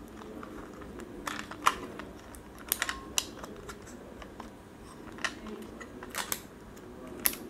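Scattered small plastic clicks and taps as an action camera in its clear waterproof housing is turned over in the hands and its latch is fumbled at, with the case not yet opening.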